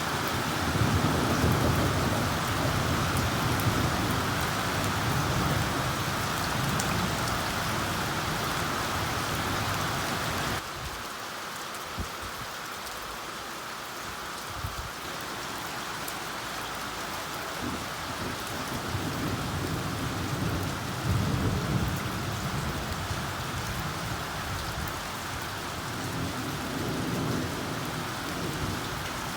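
Heavy rain pouring down steadily, with low thunder rumbling through it several times. The sound drops abruptly about ten seconds in, then the rain carries on with more rumbles.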